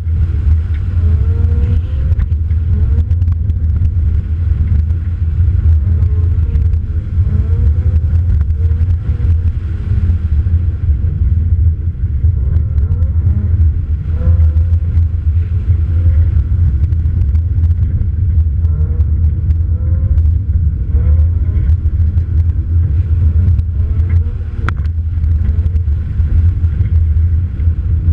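Toyota 86 rally car's flat-four engine being driven hard on a gravel stage, its revs repeatedly climbing and falling back as it accelerates and changes gear, heard from the car's rear under a heavy low rumble of road and wind noise. Scattered sharp ticks of gravel hitting the car.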